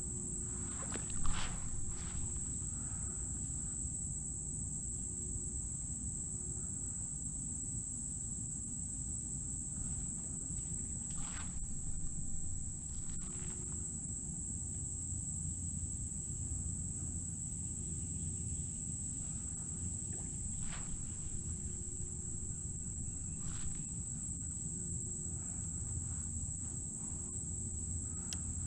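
Steady high-pitched insect chorus from the surrounding woods, over a low rumble, with a few short knocks, the loudest about a second in.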